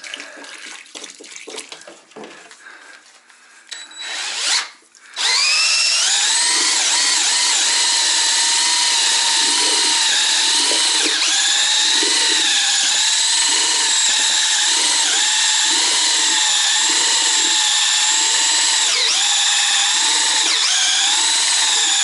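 DeWalt cordless drill with a mixing paddle churning self-leveling floor compound in a plastic bucket, a heavy load for a drill not made for mixing. About five seconds in the motor spins up with a rising whine, then runs at a steady high whine with a low churning pulse about once a second. Quieter clattering and pouring come before it.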